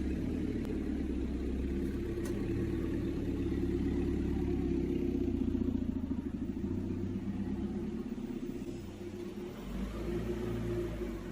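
Motor of a PVC window-profile welding machine running with a steady low hum that starts suddenly, eases about nine seconds in, then picks up again before dropping away.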